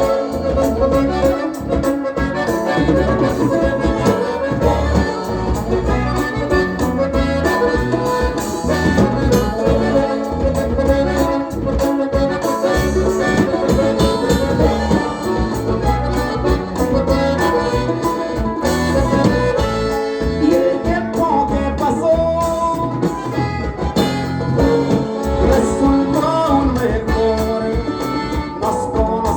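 A live band plays loud Latin music over an amplified sound system, in an instrumental passage between sung verses, with a steady bass line.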